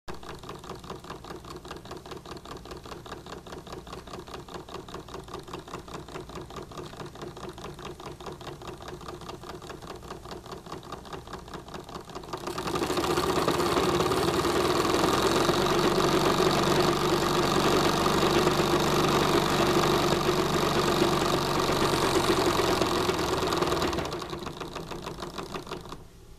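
Krick model steam engine running with a fast, even mechanical beat. About halfway through it becomes much louder and busier for roughly ten seconds, then settles back to the lighter beat near the end.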